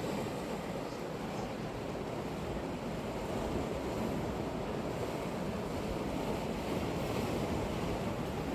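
Sea waves breaking and washing on the shore in a steady surf, with wind rumbling on the microphone.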